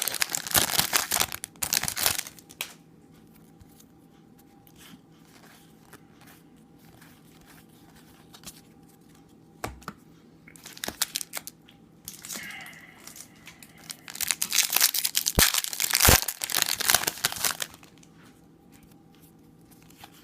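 Trading-card pack wrappers being torn open and crinkled by hand. The sound comes in bursts: at the start, briefly around the middle, and in a longer stretch near the end, with quiet gaps between.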